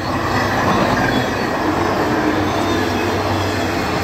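Freight train's lit-up boxcars rolling past, a steady rumble and clatter of steel wheels on the rails, with a faint wheel squeal now and then.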